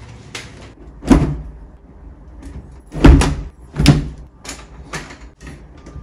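Metal folding clothes drying rack being handled and adjusted: three loud knocks, about a second in and twice around three to four seconds in, among lighter clicks and rattles.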